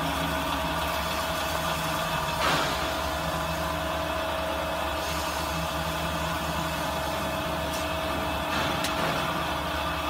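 Electric drive of a sheet-metal duct roll-forming machine running steadily with no sheet in its rollers: an even mechanical drone with a steady whine and a low hum. A brief louder swish comes about two and a half seconds in.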